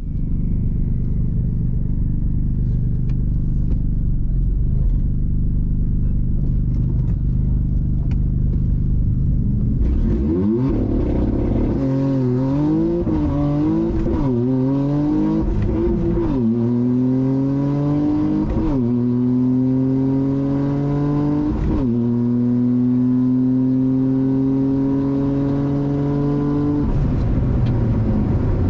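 Toyota GR Yaris's turbocharged 1.6-litre three-cylinder, fitted with an aftermarket exhaust, heard from inside the cabin. It runs steadily at first. From about ten seconds in it accelerates hard on a quarter-mile drag pass, the pitch climbing through each gear with a brief dip at every shift, the later gears climbing longer. Near the end the driver lifts off and the pitch drops.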